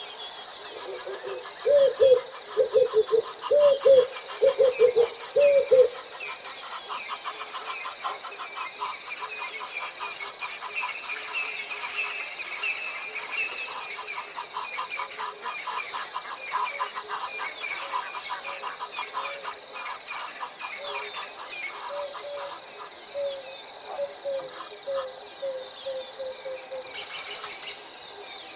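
Wild bird calls and insects. A run of loud, short calls repeats for the first few seconds, then gives way to a fast, steady pulsing trill with chirps over it, and softer short calls come back near the end.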